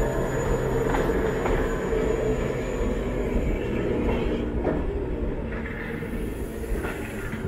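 Classic SIG/BBC/Sécheron Be 4/4 metre-gauge electric railcar running past and away over the track. A steady rumble carries a few separate clicks of the wheels over the rails, and a thin high whine is heard in the first few seconds.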